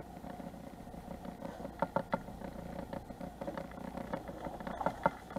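Boat's outboard motor idling in neutral, a steady low hum, with a few sharp clicks and knocks from gear in the boat about two seconds in and again near the end.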